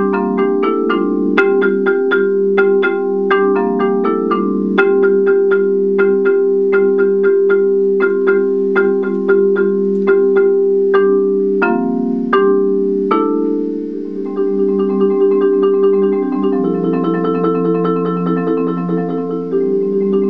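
Musser marimba played with four mallets: rolled chords hold in the low register while single notes are struck above them. About two-thirds of the way through, the texture thins for a moment, then comes back as busier rolls reaching higher up the keyboard.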